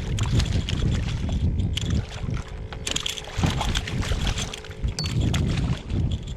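Wind buffeting the microphone aboard a fishing kayak, a gusty low rumble over lapping water, with scattered sharp clicks and knocks.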